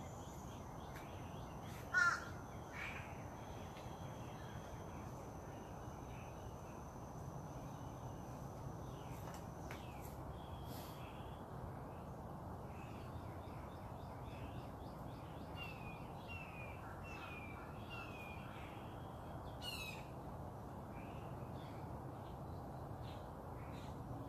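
Wild birds calling over a steady background hiss: a loud, crow-like call about two seconds in, many short high chirps, a run of falling chirps later on, and another sharp call near the end.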